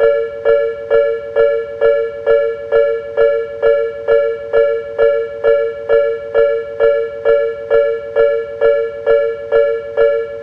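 Japanese level-crossing warning alarm ringing its steady two-tone ding, a little over two strikes a second without pause: the signal that a train is approaching and the crossing is closed.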